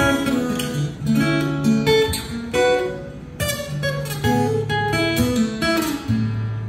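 Solo acoustic-electric guitar playing an instrumental piece: a plucked melody over low bass notes that ring on under it.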